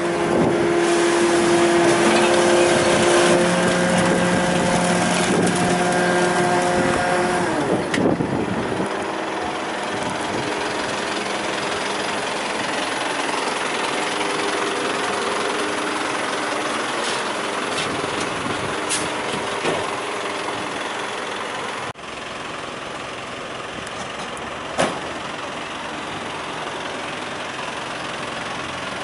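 Rubbish truck running, with a steady whine of several tones for the first eight seconds or so that then stops, leaving the engine running steadily. The sound changes abruptly about 22 seconds in, with a few short clicks after.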